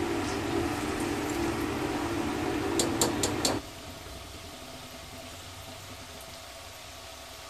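Besan-coated okra strips deep-frying in hot oil in a steel kadai on high flame, a steady sizzle of bubbling oil. For the first half a steady mechanical hum sits over it, with a few sharp clinks about three seconds in. Then the hum cuts off suddenly, leaving only the quieter sizzle.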